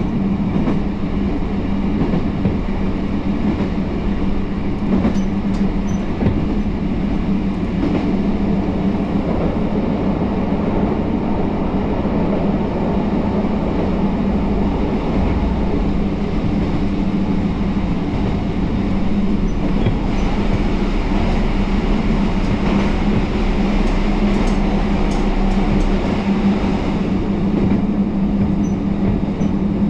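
Kyoto Tango Railway diesel railcar running along the line, a steady engine hum over the rumble of the train.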